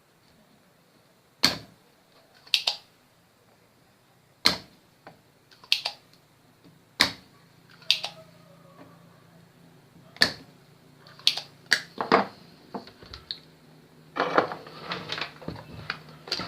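Sharp, irregular metallic clicks and knocks of hand tools and parts being handled on a workbench, about a dozen separate strikes with a short ring, turning into a quicker clattering near the end.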